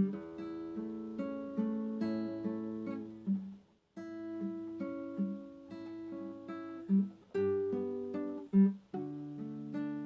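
Acoustic guitar music: slow plucked notes and chords that ring on, with a brief break a little under four seconds in.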